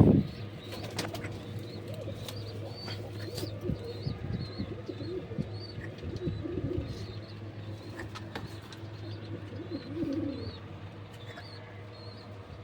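Pigeons cooing in low, warbling calls, with short high chirps repeating throughout over a steady hum. A loud thump comes at the very start.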